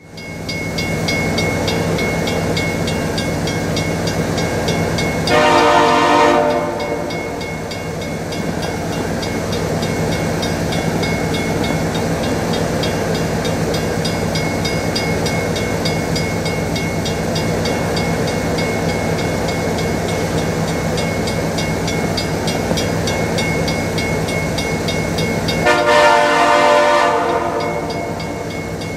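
Nathan Airchime K5LLA five-chime horn on an approaching CN SD70M-2 locomotive sounding two blasts, each about a second and a half, about five seconds in and again near the end. Between them runs the steady drone of the locomotive's diesel engine.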